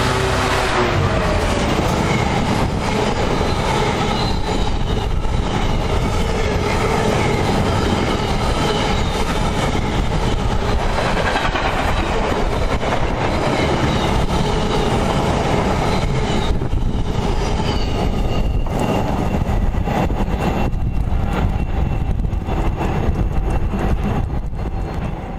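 A Class 66 diesel-electric locomotive passes close by. Its loaded container wagons follow, rumbling steadily over the rails, and the noise falls away as the last wagon clears near the end.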